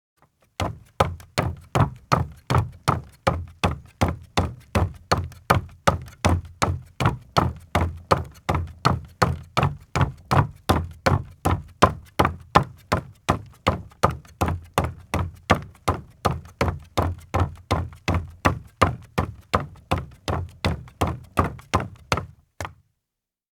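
A man walking in leather-soled shoes on a wooden deck: a steady run of hollow knocking footsteps, about two a second, that starts just under a second in and stops shortly before the end.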